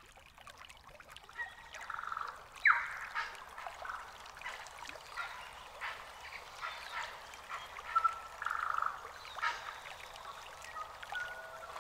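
Tui singing: a varied run of short whistled notes, clicks and buzzy, wheezy phrases, with one sharp downward-sliding note about three seconds in. Sustained steady tones come in near the end.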